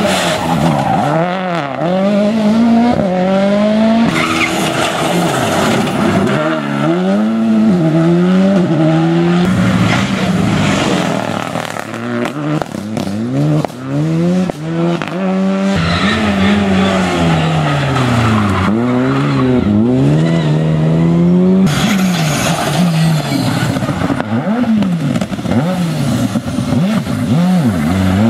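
Rally cars taking a corner one after another, each engine revving up and down through gear changes with rising and falling pitch. The sound changes abruptly between cars about every four to six seconds.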